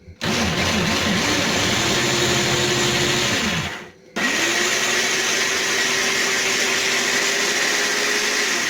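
Food processor motor pulverizing a batch of canned chickpeas, in two runs. The first run's pitch wavers under the load, then steadies and winds down about three and a half seconds in. The motor starts again about half a second later and runs steadily.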